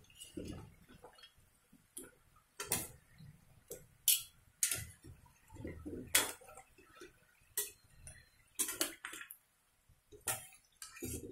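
A steel ladle clinking and scraping against a steel kadai as frying nimki are stirred and turned in hot oil, in irregular knocks about once a second, over the bubbling of the oil.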